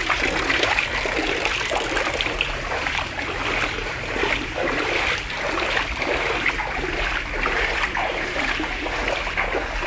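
Someone wading on foot through floodwater, the water swishing and splashing with each stride in a steady rhythm.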